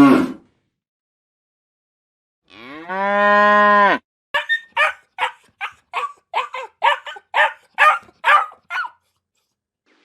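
Cow mooing: one long call that rises and then holds steady before cutting off, followed by a quick run of about a dozen short calls from another animal.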